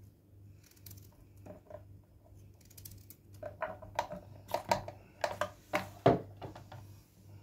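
Kitchen knife cutting the ends off zucchini on a wooden cutting board: a run of soft cuts and knocks of the blade on the wood, sparse at first and thicker in the second half, the loudest about six seconds in.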